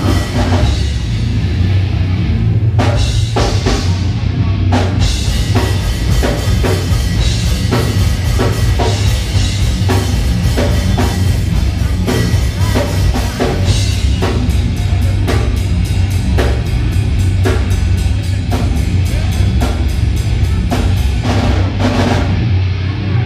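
Brutal death metal played live by a full band: heavily distorted electric guitar and bass over fast, pounding drums with bass drum and snare hits. The song breaks off at the very end.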